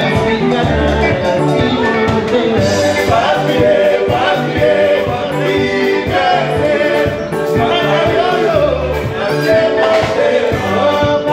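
Live band music: several male singers singing together over electric guitar, congas and drums, with a steady beat.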